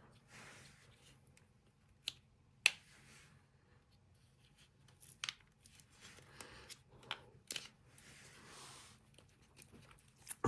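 Hands handling the plastic control panel parts of a dishwasher: a few sharp, irregular plastic clicks and snaps with soft rustling between them.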